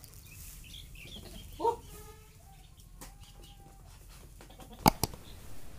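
Quiet farm shed sounds: a short animal call about two seconds in, then two sharp clicks close together near the end.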